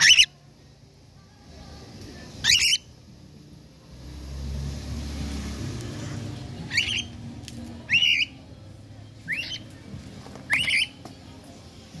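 Cockatiel giving short, sharp squawking calls, six in all, a second or two apart, each a quick up-and-down sweep in pitch.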